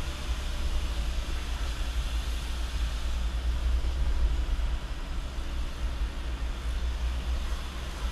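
Truck engine running under way, heard inside the cab: a steady low rumble with road noise.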